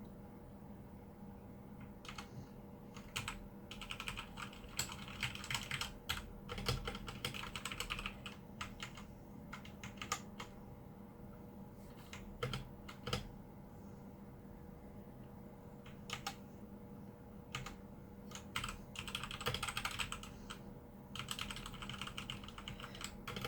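Redragon K617 Fizz mechanical keyboard being typed on: bursts of rapid keystrokes, with a few single key presses and short pauses between the bursts.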